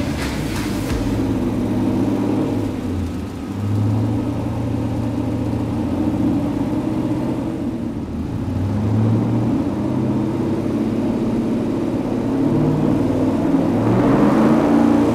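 LS3 V8 of a Factory 5 '35 hot rod truck running on a chassis dyno. The engine holds steady speeds and steps down and up in pitch a few times. It is a little louder and brighter near the end.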